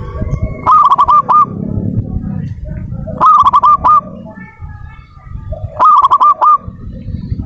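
Zebra dove (perkutut) cooing: three short phrases, about two and a half seconds apart, each a quick run of four or five coos. A low background rumble runs underneath.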